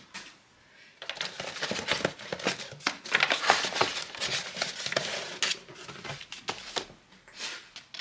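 Crinkled brown kraft packing paper and cardboard rustling and crackling as a parcel is unpacked by hand, starting about a second in.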